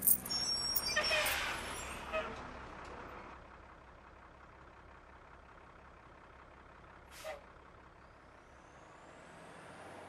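Bus air brakes hissing, starting suddenly and fading over about three seconds. Then it is near quiet, with one short burst about seven seconds in and a faint rising whine near the end.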